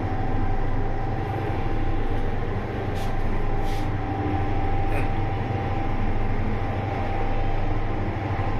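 Passenger lift running upward, heard inside its glass-walled cabin: a steady low hum with a faint steady whine over it, and a few light clicks about three to five seconds in.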